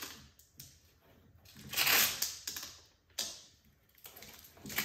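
Painter's tape being pulled off the roll. There is a noisy stretch of about a second near the middle and a shorter pull that starts sharply a little later, with a few light taps around them.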